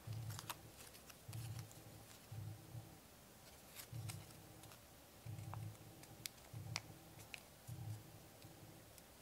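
Faint crinkling and crackling of square origami paper being folded and creased by hand, with a few sharp crisp snaps. Underneath, a low hum pulses on and off roughly once a second.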